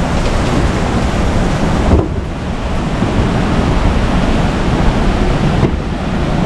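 Loud steady rush of waterfall water, dulling briefly about two seconds in and again near the end.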